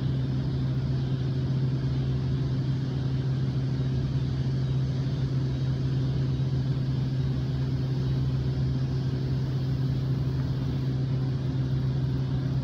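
A steady low machine hum with a constant pitch, unchanging throughout.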